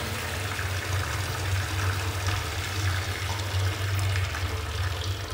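Water running steadily from a sink tap into the basin.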